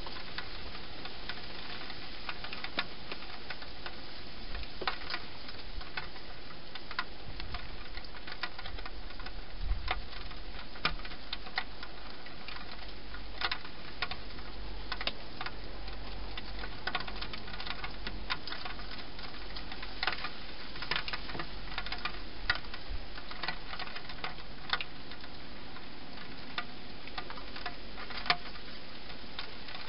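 Wild hedgehog eating dry food inside a plastic feeding box: irregular crisp crunches and clicks, over a steady hiss.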